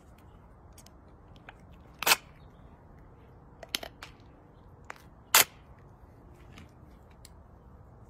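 Short sharp clicks: three loud ones about two, four and five and a half seconds in, with a few fainter taps between.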